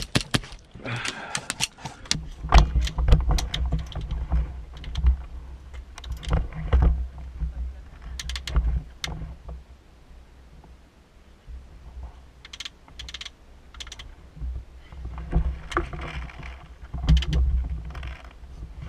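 Handling and movement noise from an airsoft player's gear and rifle: scattered clicks and knocks in several short clusters, with low rumbles of movement or wind on the camera's microphone that come and go.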